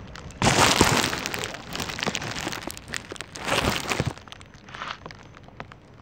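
Hands rummaging through dumpster trash: a rustling noise in two loud bursts, about half a second in and again about three and a half seconds in, with small clicks and knocks between.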